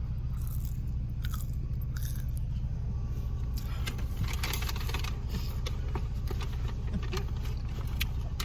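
Steady low hum of a moving car heard inside the cabin. Scattered clicks, rustling and scraping handling noises grow busier from about three and a half seconds in.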